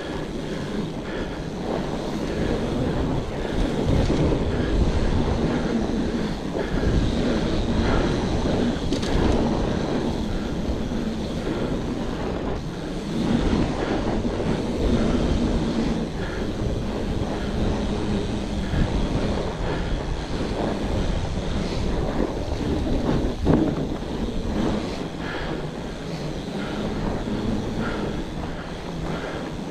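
Wind buffeting the microphone and a fat bike's wide tyres rumbling over the trail on a downhill descent, with frequent knocks as the bike hits bumps. The sharpest knock comes about 23 seconds in.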